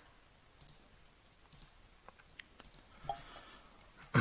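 Computer mouse clicking, a scattered handful of faint, sharp clicks over quiet room tone.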